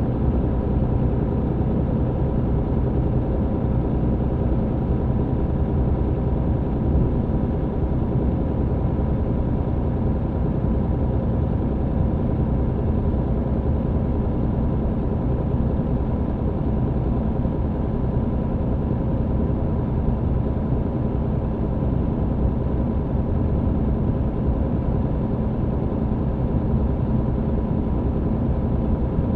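MAN TGX truck's diesel engine running at a steady speed with road noise, heard from inside the cab: a constant low rumble that does not rise or fall.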